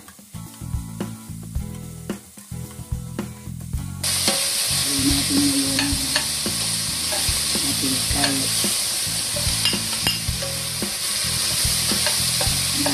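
Chopped onions, garlic and sliced fishball and squidball sautéing in oil in a stainless steel pot, a spatula stirring and scraping through them with light clicks. The sizzle turns suddenly much louder about four seconds in. Background music plays underneath.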